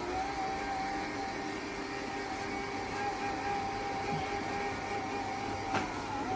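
AirGrab robot vacuum cleaner running, a steady motor hum with a constant high whine. A single light click near the end.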